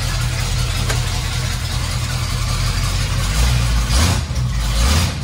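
Swapped-in Chevrolet Caprice engine in a 1965 International truck idling steadily with no exhaust system fitted yet, rising briefly twice near the end.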